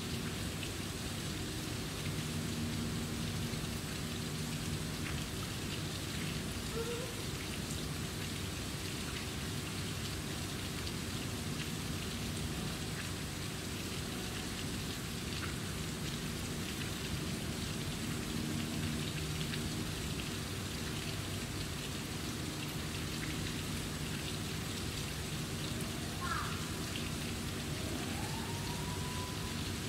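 Steady outdoor background noise: an even hiss with many faint patters over a low hum. A single short rising call comes near the end.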